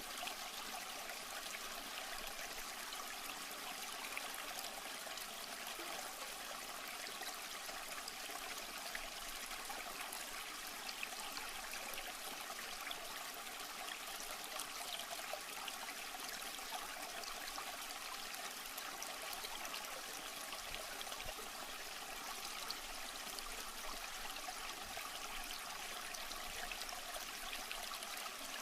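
Aquarium water trickling and splashing steadily, the running water of a filter return falling into the tank.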